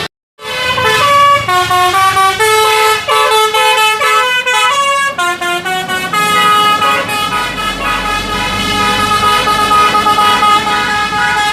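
Loud 'telolet basuri' melodic multi-tone air horn on a tour bus, playing a tune of stepped notes and then holding one long chord from about six seconds in.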